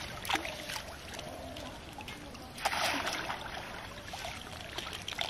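Pond water splashing as a long-handled hoop net is plunged and swept through it: a short splash near the start and a louder one a little under three seconds in.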